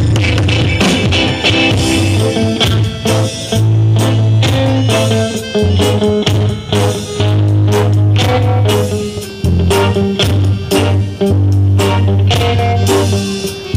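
Live band music: electric guitar over held bass-guitar notes and a drum kit.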